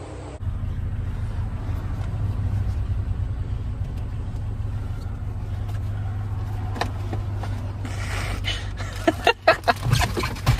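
A car's engine running as a steady low rumble, with several sharp clicks and knocks near the end.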